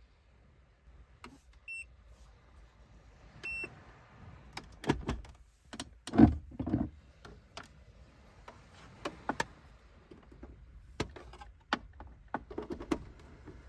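Two short electronic beeps, then a run of sharp clicks and knocks from objects being handled, with the loudest thump about six seconds in.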